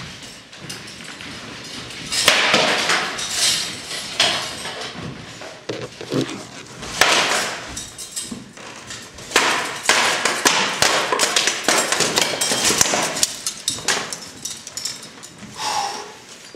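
Rattan swords striking round shields and steel armour in armoured sparring, in quick flurries of hard cracking hits with pauses between exchanges.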